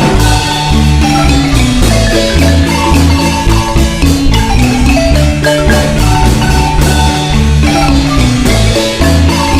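Marimba music: mallets striking a quick melody over steady bass notes.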